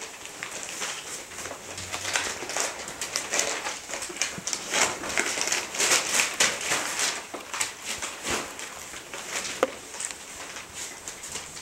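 Seven-week-old Chinese Crested Dog puppies moving about and playing: a continual, irregular run of scuffling, scratching and clicking, with small puppy noises.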